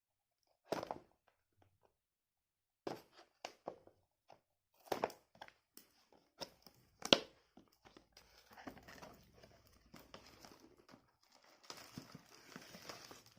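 A phone's cardboard retail box being opened and its packed contents handled: scattered taps and scrapes, a sharp click about seven seconds in, then continuous rustling of paper and packaging.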